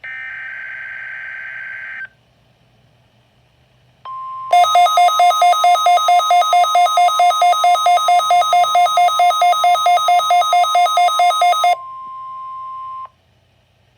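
The last burst of a NOAA Weather Radio SAME digital header, a shrill warbling data tone, lasts about two seconds. After a short pause the steady 1050 Hz warning alarm tone sounds for about nine seconds. Over most of it a louder, buzzy beep pulses about four times a second.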